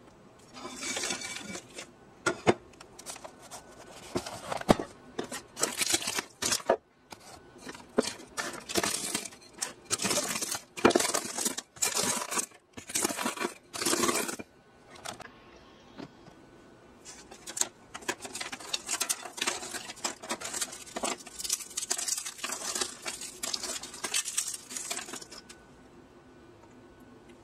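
Crisp, dry baked Napoleon cake pastry layers crackling and crunching as they are crushed into crumbs with a wooden rolling pin. The crunching comes in irregular bursts of rapid crackles with a few short pauses, and stops about two seconds before the end.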